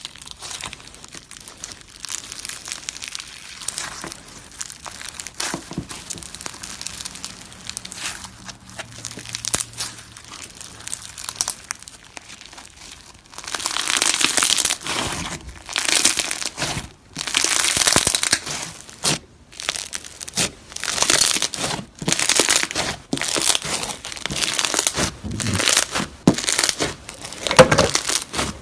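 Slime being squished and kneaded by hand, crackling and popping. It is soft and patchy at first, then turns into loud squelching squeezes about once a second from around halfway through.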